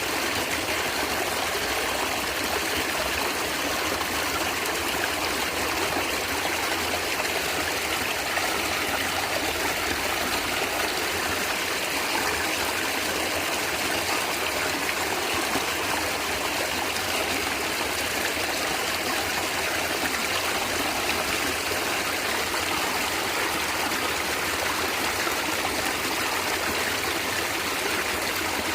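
A stream of water flowing and gurgling steadily, with no change in level.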